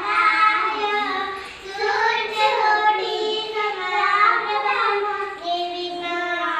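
Young children singing a devotional prayer song in front of a lit household shrine lamp.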